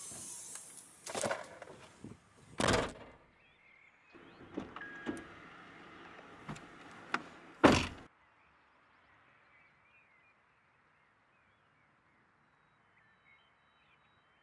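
Scattered knocks and handling noises, then a car door shutting with a single loud thunk about eight seconds in. After that comes near silence.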